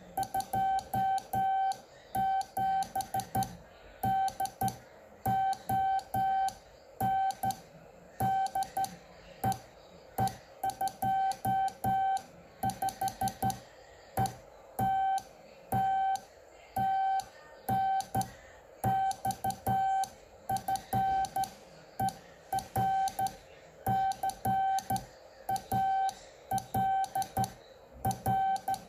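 Morse code being sent on a Kenwood TM-255 2 m transceiver in CW mode: the transmit sidetone beeps out dots and dashes as a single mid-pitched tone, with a sharp click at each keying.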